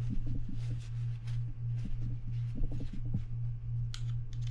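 A steady low hum, with faint rustling and light clicks as small metal parts of a spinning reel's bail arm are wiped with a paper towel and handled.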